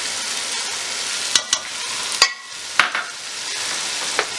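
Chicken and onion masala sizzling in a pot over high heat as whisked yogurt is poured in and stirred with a wooden spatula. A few sharp knocks against the pot break the steady sizzle, which dips for a moment about halfway.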